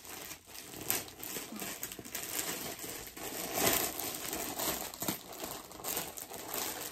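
Packaging crinkling and rustling as a package is opened and a hoodie unwrapped, in irregular handling noises with a few louder crackles.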